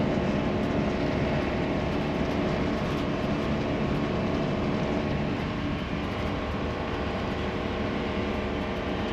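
Cabin noise of a Class A motorhome driving at highway speed: steady road and engine noise with a faint hum, easing slightly in level.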